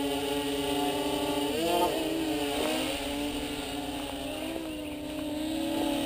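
A small RC tricopter's electric motors and propellers running as it flies, a steady hum whose pitch wavers and dips briefly about two seconds in.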